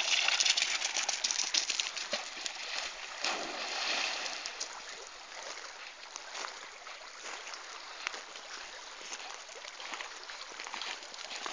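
A dog splashing through a shallow river, the splashing loudest over the first few seconds. It then settles to a quieter, steady wash of flowing water with scattered small splashes.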